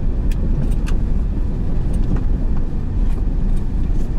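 Car driving slowly on a gravel road: a steady low rumble of engine and tyres, with scattered sharp clicks of stones under the tyres.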